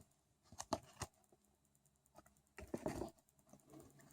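Faint clicks and light rustles of cardboard trading cards being handled and flipped through in the hand. There are a few taps about half a second to a second in, and a short cluster of them near three seconds.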